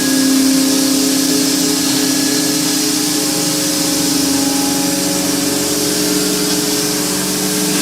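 Corn husk grinding machine running steadily: a loud, even machine hum with a strong steady tone over a constant hiss.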